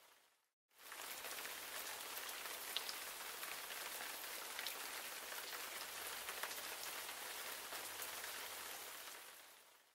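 A steady, even rain-like hiss with faint scattered crackles. It fades in after a brief silence just under a second in and fades out near the end.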